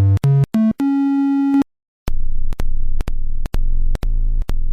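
Loud synthesized beep tones pushed into a Ventrilo voice channel by a harassing bot: a quick run of short notes climbing in pitch, one note held for about a second, a short break, then a string of low, buzzy tones chopped off and restarted every fraction of a second.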